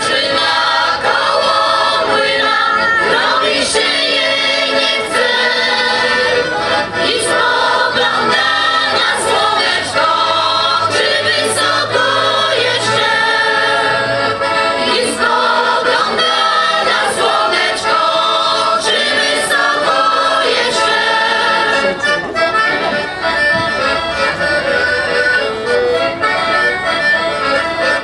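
Folk song sung in chorus by women's and boys' voices, accompanied by a piano accordion.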